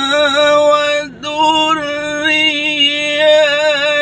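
A man reciting the Quran in melodic tilawah style, his unamplified voice holding long, ornamented notes with a wavering melisma. It breaks off briefly about a second in for a breath, then carries on with another long held phrase.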